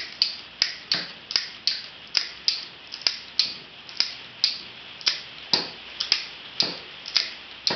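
IronGrip SCS13 ratcheting wire rope cutter being pumped by hand, its ratchet clicking about three times a second as the blade is fed step by step through a steel wire rope.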